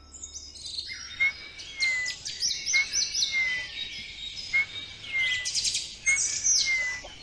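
Birds chirping and singing: quick high chirps throughout, with a whistled phrase that rises and falls, repeated about four times.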